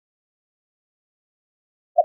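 Silence between coo phrases of a spotted dove, broken just before the end by the short first note of its next coo.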